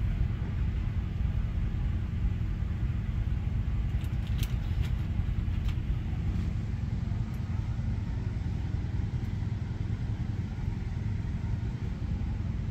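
A steady low engine rumble, with a few faint clicks about four to six seconds in.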